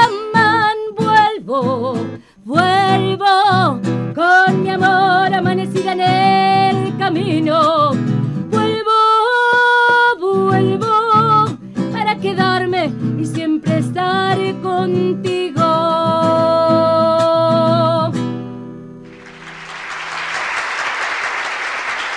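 A woman sings a Spanish-language ballad to her own strummed acoustic guitar. The song ends on a long held note about 18 seconds in, and applause follows.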